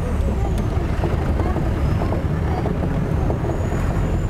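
A jeep driving over a rough dirt track: a steady, heavy low rumble of engine and road noise.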